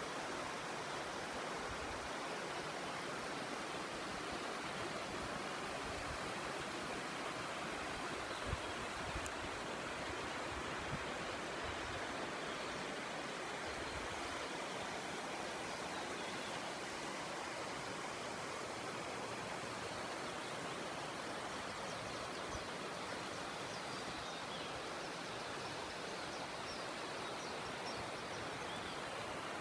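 Steady rushing noise of river water flowing through the gorge below, with a few faint clicks about eight to eleven seconds in.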